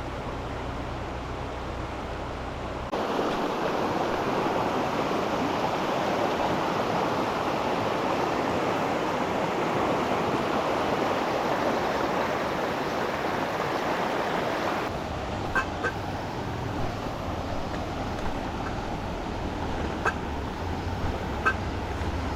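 A low steady hum that gives way about three seconds in to a louder, even rushing noise. About fifteen seconds in it drops back to the low hum, which carries a few faint sharp clicks.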